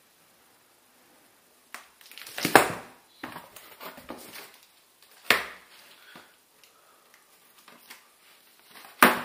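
Cardboard box flaps being pulled open and folded back by hand: a series of scrapes and rustles, the loudest about two and a half seconds in, at about five seconds and near the end.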